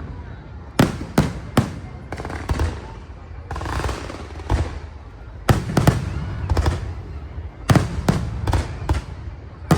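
Aerial fireworks bursting in a dozen or so sharp bangs at uneven intervals, some in quick clusters, over a low continuous rumble.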